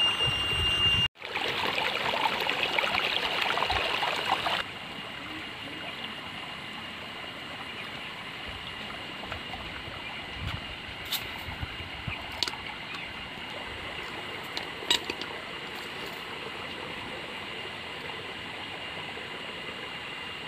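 Steady rushing of running water, like a nearby stream or irrigation channel, louder for the first few seconds. A thin steady high tone runs throughout, and a few light clicks fall in the second half.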